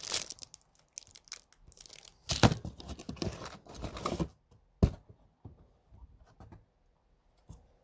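Crinkling and rustling of a plastic bag and handling of cardboard packaging, in irregular bursts, with a sharp knock about five seconds in and then only faint light taps.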